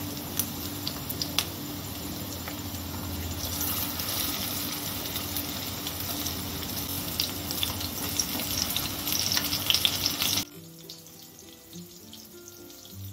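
Battered stuffed kakrol sizzling in hot mustard oil in a kadai, with sharp clicks as a slotted metal spatula knocks against the pan while turning the pieces. About ten seconds in, the sizzle drops suddenly to a much quieter level.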